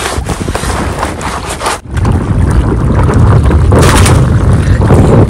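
Wind buffeting the microphone, becoming a heavy, loud rumble about two seconds in.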